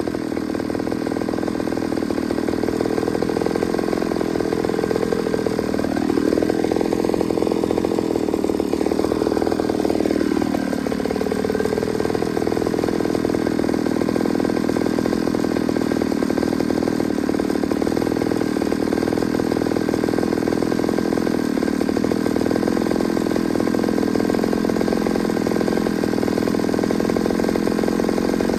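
Ported Pioneer two-stroke chainsaw, fitted with a swapped carburetor, running hard. About six seconds in its pitch climbs, holds for a few seconds, then drops back. The owner judges its performance held back by a restrictive muffler.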